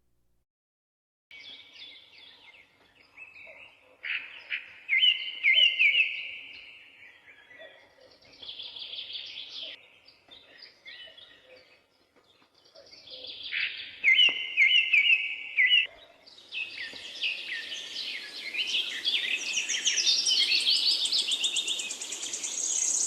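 Wild birds singing: separate chirping song phrases, then a denser chorus of several birds with higher notes for the last third.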